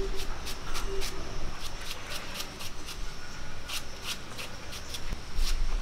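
Knife dicing a red onion held in the palm: quick, uneven runs of crisp cuts, several a second, with short pauses between runs.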